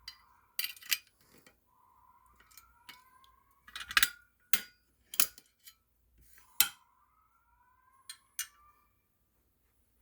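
Sharp clicks and knocks, about a dozen, as a fire alarm pull station is handled and reset, over a faint rising whoop tone that repeats several times from an alarm speaker.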